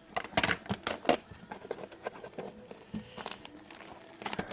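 Packaging being torn open and crinkled by hand: irregular crackling rustles, busiest in the first second and a half, with another flurry about three seconds in.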